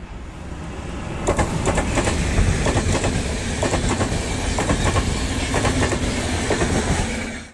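Electric-hauled passenger train passing close at speed: the locomotive's approach builds over the first second or so, then a rapid clickety-clack of coach wheels over rail joints as the coaches go by. The sound cuts off suddenly at the end.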